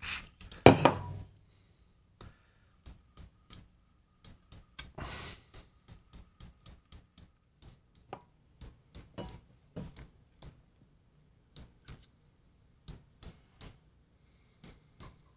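Short hissing bursts of contact cleaner sprayed through a straw into the guitar pedal's control potentiometers, one under a second in and another about five seconds in, with scattered light clicks and taps from handling the metal pedal enclosure.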